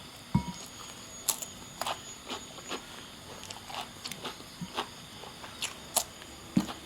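Someone eating a meal: irregular light clicks and taps with chewing, and a duller knock about half a second in and another near the end.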